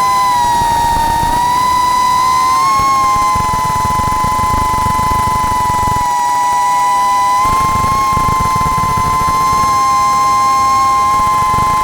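FPV quadcopter's brushless motors whining at a high, steady pitch that dips and rises in small steps with throttle changes. A rough rumble of wind over the onboard microphone comes and goes underneath.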